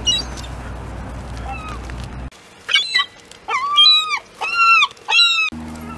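Gulls calling: about five loud, arching cries in quick succession, starting a little under three seconds in, with a few fainter calls over steady outdoor noise before them.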